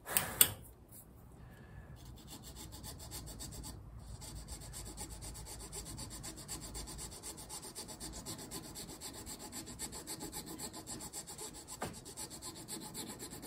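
Steel needle file scraping in short, quick strokes on G10, filing the shoulders of a handle slot a little at a time. A sharp knock about half a second in.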